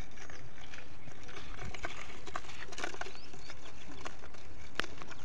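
Steady outdoor background noise, with a few faint bird chirps around the middle and a single sharp click near the end.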